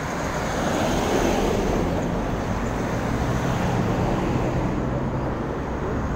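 Road traffic: cars driving past close by, with tyre and engine noise that swells about a second in over a steady low engine hum.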